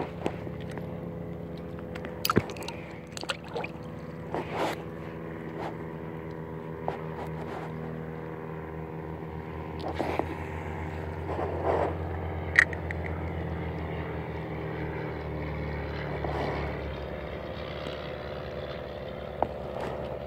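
Small boat motor running steadily with an even hum, with occasional knocks and clicks from handling on board.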